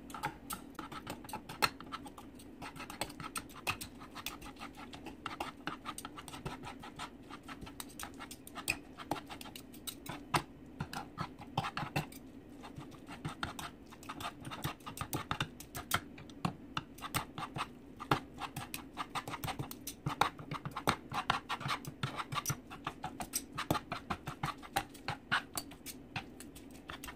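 Metal forks shredding cooked chicken breasts on a plastic cutting board: rapid, irregular scraping and tapping of the tines against the board. A steady low hum runs underneath.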